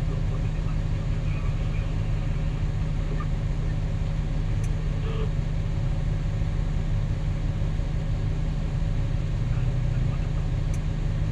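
Cat 6020B hydraulic mining shovel's diesel engine running steadily under digging load, a continuous low drone.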